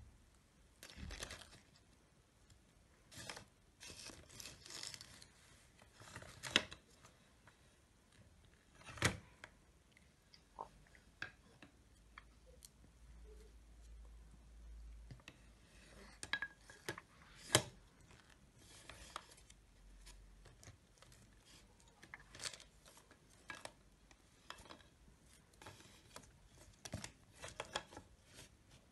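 Faint, irregular knocks, clicks and rustles of wooden utensils, pine cones and other objects in a wicker treasure basket being handled and rummaged through by a baby, with a few louder knocks among them.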